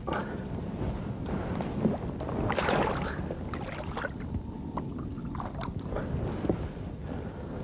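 Steady wind rumble on the microphone with water splashing at the side of a boat as a bass is released by hand; the loudest splash comes about two and a half seconds in, followed by a few small clicks and drips.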